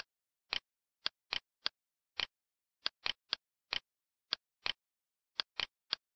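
Computer mouse clicking: about fourteen short, sharp clicks at uneven intervals, some in quick pairs, with dead silence between.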